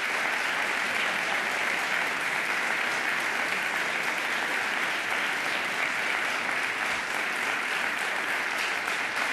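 A chamber full of legislators applauding, a steady sustained round of hand-clapping that neither builds nor dies away.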